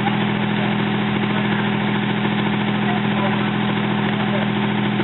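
Fire engine running steadily at the fire scene, a constant unchanging engine drone with a strong steady pitch.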